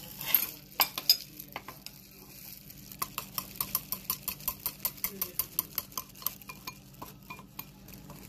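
A utensil stirring eggs and tempura batter mix in a bowl, knocking against the bowl: a few separate strikes at first, then from about three seconds in a quick even clicking, about four or five a second, as the batter is beaten.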